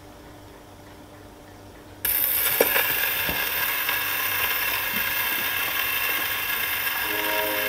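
A gramophone needle set down on a spinning 78 rpm shellac record about two seconds in: a few clicks, then the steady hiss and crackle of the record's surface in the lead-in groove. The record's music begins near the end.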